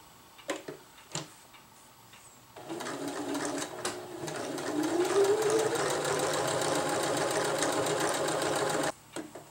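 Electric sewing machine stitching a seam. A few light clicks come first. About two and a half seconds in the motor starts, picks up speed with a rising whine, runs steadily, and stops abruptly near the end.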